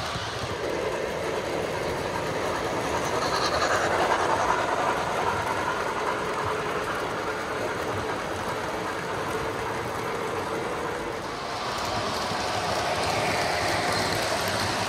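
O gauge model passenger cars rolling past close by, a steady rumble of metal wheels running on the track.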